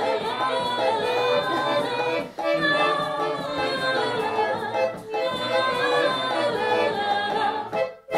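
A woman singing a folk song to a button concertina, with light mallet percussion. The music stops on its final note near the end.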